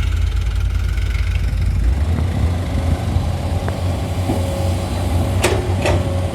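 Diesel engine of heavy machinery running steadily, its low rumble shifting in tone about two seconds in. Two sharp metallic knocks come near the end.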